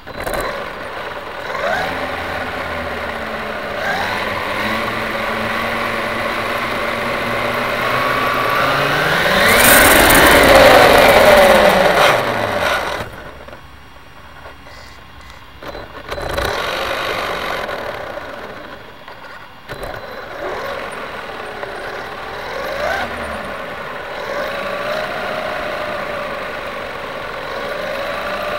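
RC car motor whining, its pitch rising and falling again and again as the car speeds up and slows down. It is loudest about ten seconds in and drops off briefly twice afterwards.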